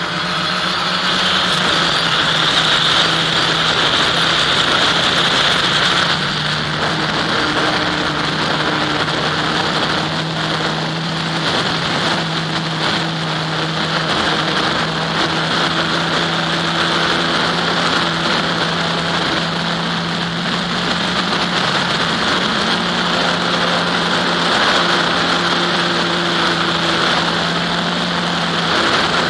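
Motor and propeller of an FPV model airplane in flight, picked up by its onboard camera: a steady drone that shifts a little in pitch, over the rush of air past the airframe.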